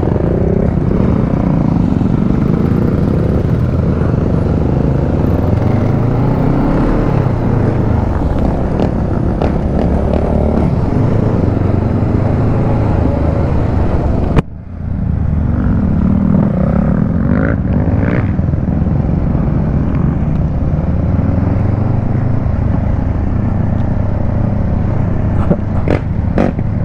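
Motorcycle engine running under way, its pitch rising and falling with the throttle over a steady rush of riding noise. The sound drops out sharply for a moment about halfway through, then carries on, with a few light clicks near the end.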